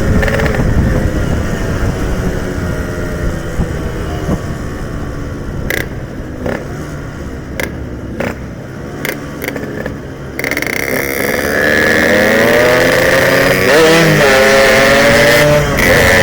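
Yamaha RX-King's single-cylinder two-stroke engine on the road, easing off with falling pitch for several seconds, with a few short clicks. About ten seconds in it opens up sharply and revs up through the gears, its pitch climbing, with a brief dip at a shift.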